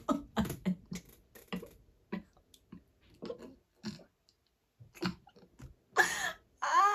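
A woman laughing in short breathy gasps, quick at first and then further apart, with a louder voiced laugh about six seconds in.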